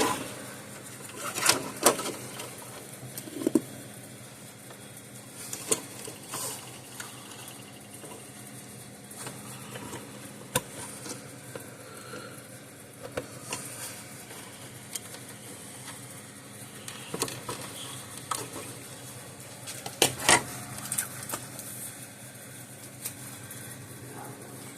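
Scattered clicks and handling sounds of wiring connectors being plugged back onto an electric fence charger during reassembly, with the sharpest click about twenty seconds in.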